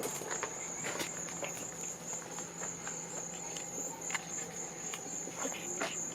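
A steady, high-pitched insect trill, like a cricket's, with a few faint scattered taps.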